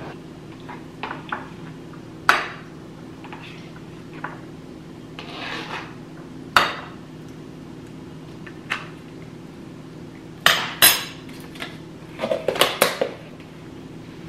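A metal spoon clinking and knocking against a ceramic bowl as yogurt is scooped from a plastic tub, in scattered single taps. A quick cluster of clatters comes near the end as the tub's plastic lid is handled.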